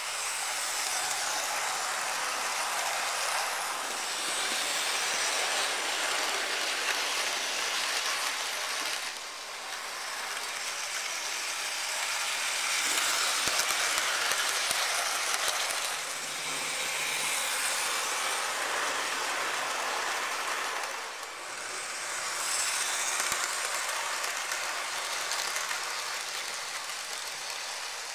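Hornby OO-gauge model trains, among them a Class 47 hauling the Serco test coaches, running on the layout's track with a steady rolling and motor noise that swells and fades every five or six seconds as they circle past.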